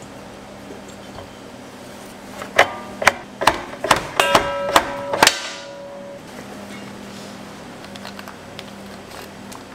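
Stainless steel tomato slicer worked by hand: a quick run of about eight sharp metal clacks with ringing tones, about two and a half to five seconds in, over a steady low hum.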